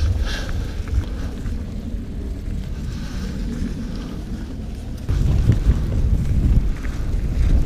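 Wind buffeting the camera microphone of a moving mountain bike, with a low rumble of tyres and bike on snowy singletrack. The rumble gets louder about five seconds in, with a run of knocks as the bike goes over rougher ground.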